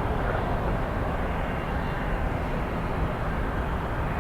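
Airliner engine noise: a steady rumble with no rise or fall.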